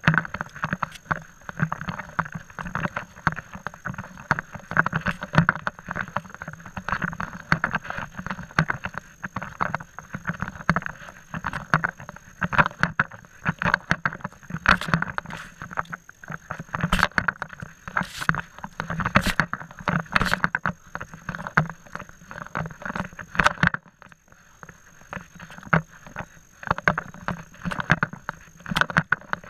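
Constant irregular knocking, scraping and rubbing from a camera worn on the body while walking, with now and then a sharper tap.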